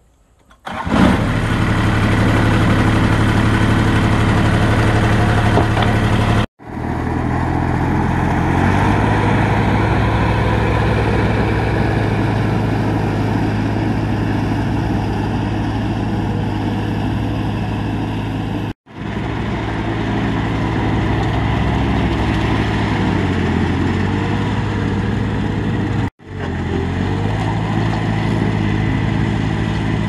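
Kubota riding lawn tractor's engine starting about a second in, then running steadily while mowing. The sound drops out abruptly three times in short silent gaps.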